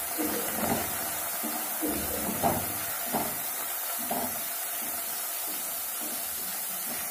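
Chopped onions sizzling in hot ghee in a kadhai as they fry toward golden, with a steady hiss. A wooden spatula scrapes and stirs them about five times in the first four seconds.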